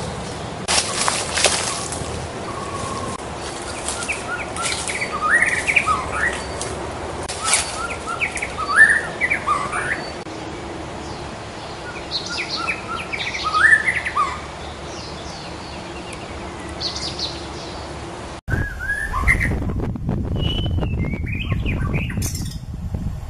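White-rumped shama (murai batu) singing a string of varied whistled phrases, many rising in pitch, mixed with sharp clicks. About three-quarters of the way through, the sound cuts abruptly to another shama song with a louder low background noise.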